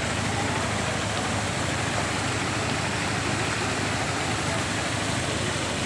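Floodwater rushing steadily across a road, with a vehicle engine idling underneath as a low, even hum.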